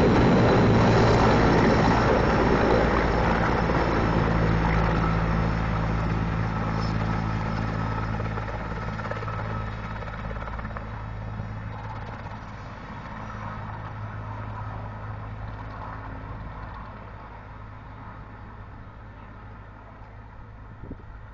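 Sikorsky S-64 Skycrane heavy-lift helicopter flying away: the steady low rotor drone and engine noise of its twin turbines, fading steadily over about twenty seconds as it recedes.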